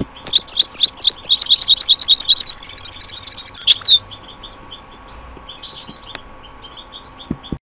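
Songbird song played back from a recording: a fast run of loud chirps and whistled notes, a held high trill, then a closing flourish that stops sharply about four seconds in, leaving only faint chirping. The song is a composed sequence of three phrases ending in a closing phrase.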